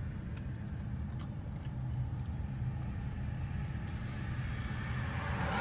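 Steady engine and tyre rumble inside a moving car's cabin, with a swell of rushing noise near the end as an oncoming car passes.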